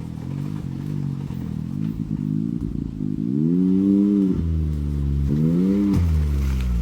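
Can-Am Maverick X3's turbocharged three-cylinder engine running through an aftermarket exhaust, revving in pulls. Its pitch climbs and drops back again, about three seconds in and again near the end, and it gets louder in the second half.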